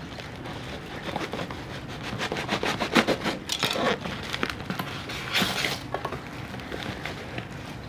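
A taped cardboard parcel being opened by hand: packing tape and paper wrapping are scraped and torn, and cardboard flaps are pulled apart. This makes a run of crackling, ripping strokes, densest about three seconds in, with another short rip at about five and a half seconds.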